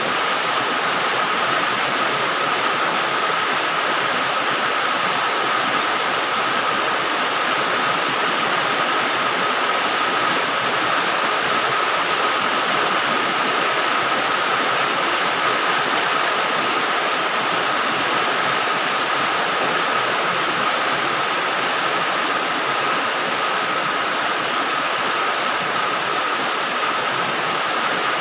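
Heavy rain falling on a galvalume sheet-metal roof, a steady, dense hiss of drops.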